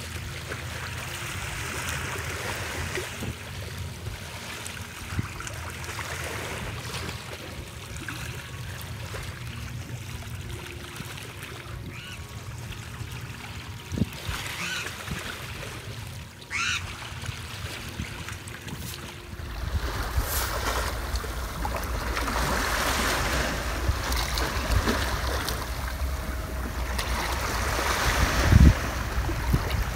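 Small waves washing and splashing against a rocky shore, with wind rumbling on the microphone. The water sound grows louder in the last third.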